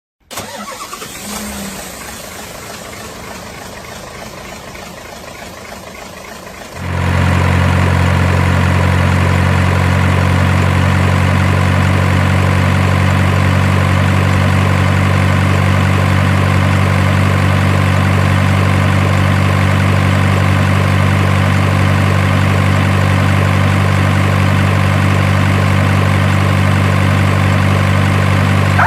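Faint background noise, then about seven seconds in a diesel-style engine idling sound switches on abruptly and runs perfectly steady and loud. It is the simulated engine sound of a radio-controlled model truck or excavator.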